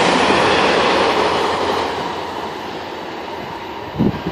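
VIA Rail passenger train passing at speed, its wheels and cars making a loud rushing rail noise that fades away after about two seconds as it recedes. A brief thump near the end.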